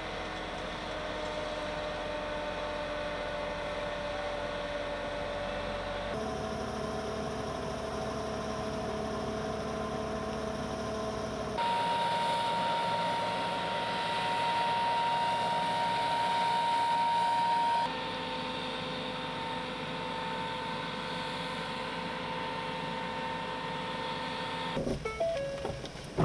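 Steady mechanical hum of fire-truck engines and water pumps running, with a sustained whine during the water-cannon spraying; the sound changes abruptly several times. A few sharp clicks and a short loud burst near the end.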